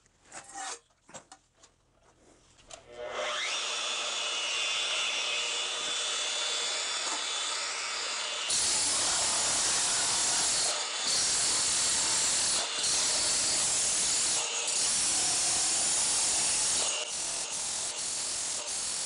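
A few light handling knocks, then a corded Milwaukee 1-3/4" SDS Max rotary hammer starts about three seconds in and runs in chisel mode, driving a wide tile scraper chisel against slate tile on a concrete floor. It gets louder about eight seconds in and has a few brief dips. The wide chisel lacks the focused force to lift the tile.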